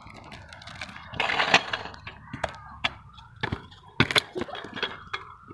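Stunt scooter rolling on asphalt during a feeble grind attempt. About a second in there is a harsh scrape, then a string of sharp clacks and knocks as the deck and wheels hit the ground.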